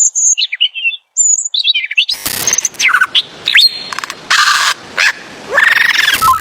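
Bird calls: a few high whistled chirps and glides, then a run of short harsh calls, and one pitched call near the end.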